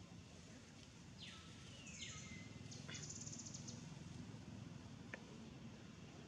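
Faint bird calls over a low, steady background hum: two high falling whistles between one and two seconds in, the second levelling off into a held note, then a short buzzy trill and a brief chirp near the end.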